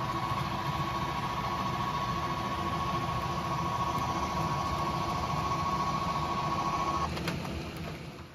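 Electric model trains running on a layout: a steady rumble of wheels on the track with a motor hum and a steady high whine. The whine cuts off about seven seconds in, a few clicks follow, and the sound then fades.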